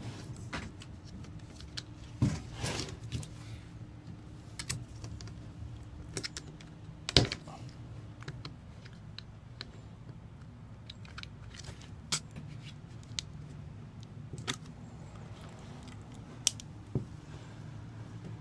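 Plastic lid of a tub of flooring adhesive being pried off by hand: irregular sharp clicks and snaps as the rim is worked loose, the loudest about seven seconds in.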